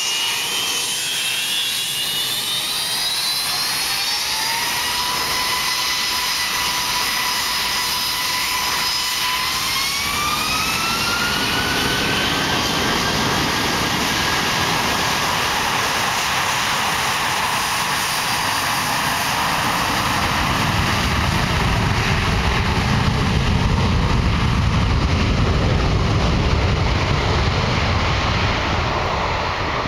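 Twin-engine jet airliner's engines spooling up to takeoff thrust: a whine rises in two steps over the first dozen seconds. Then steady jet noise as it accelerates down the runway, with a deep rumble building, loudest about two-thirds of the way through.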